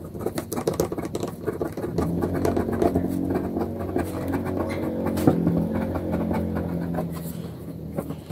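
Ballpoint pen scratching and tapping on paper as it writes, over a low motor hum that swells about two seconds in and fades near the end.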